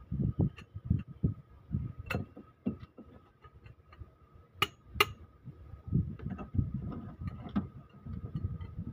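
Socket wrench with a long pipe extension working on cylinder head bolts: irregular metallic clicks and knocks mixed with dull thumps, with two sharper clicks about halfway through. A faint steady high hum runs underneath.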